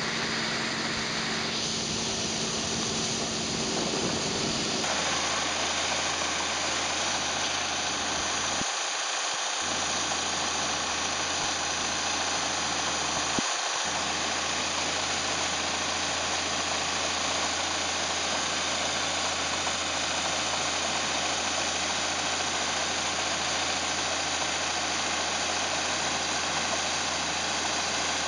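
Combine harvester running steadily: a constant engine and machinery noise. The sound changes abruptly about five seconds in, with a steady low hum after that.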